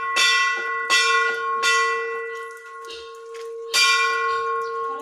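Hanging temple bells struck in quick succession, about four strokes in the first two seconds and one more strong stroke a little before the end, with a steady ringing hum carrying on between strokes.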